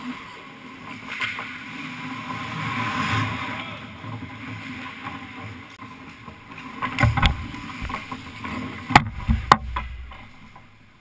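Ice hockey play in front of the goal: skates scraping and hissing on the ice, then a scramble at the crease with several sharp clacks of sticks and puck against the goalie's pads, a pair about two-thirds of the way through and the loudest ones near the end.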